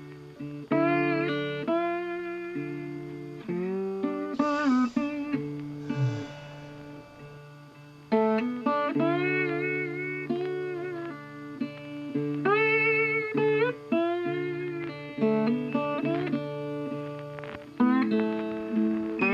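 Guitar music: a plucked melody with bent, wavering notes over held bass notes, thinning out for a few seconds early on before the melody picks up again.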